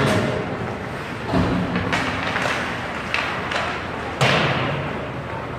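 Ice hockey play: a run of knocks and thuds of puck and sticks against the rink boards, the loudest about four seconds in.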